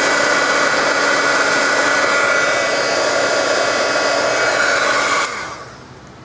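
Craft embossing heat gun running, a steady blowing whir with a few held whining tones, melting embossing powder on a stamped card. About five seconds in it is switched off and winds down quickly.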